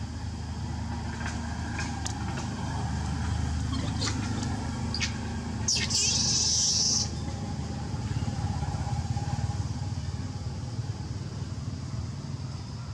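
A steady low motor-vehicle engine rumble. A few faint clicks come in the first seconds, and a loud hiss starts about six seconds in and lasts a little over a second.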